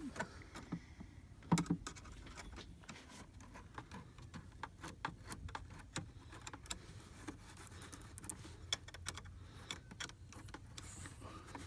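Flathead screwdriver loosening the clamp on an S&B air-intake filter: a run of small metallic clicks and taps, with one louder knock about a second and a half in.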